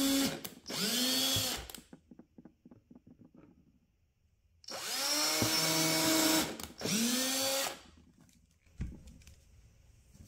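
DeWalt cordless drill spinning a 1/16-inch bit through the wall of a plastic storage bin in short bursts: two near the start and two more in the middle. The motor's whine rises as each burst spins up and falls as it stops, with light clicks of handling between the pairs.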